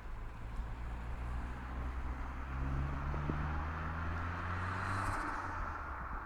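Fiat Coupé 16v Turbo's turbocharged four-cylinder engine pulling under acceleration, its note rising slowly, then dropping away about five seconds in as the throttle closes, with a short hiss at the lift-off.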